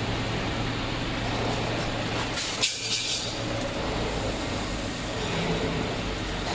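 CNC metal band saw machine running steadily with a constant low hum, with a short hiss and a knock about two and a half seconds in.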